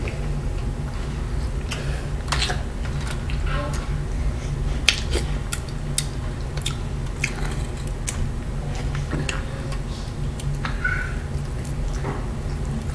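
Cooked shrimp being peeled by hand: scattered small crackles and clicks of the shells breaking, over a steady low hum.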